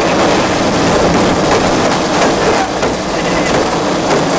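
Tornadic wind and driving rain battering a storm-chasing vehicle, heard from inside as a continuous loud rush like a passing train, with many small impacts of rain and debris striking the body and glass.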